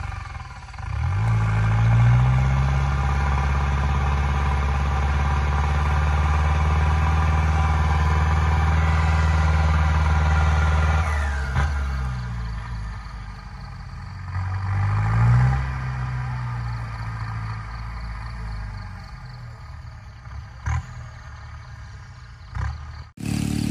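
Belarus tractor's diesel engine working hard as it pulls through mud. The revs rise about a second in and hold steady, drop about halfway, then climb again briefly before falling back to a lower, quieter run. There are a few sharp clicks near the end.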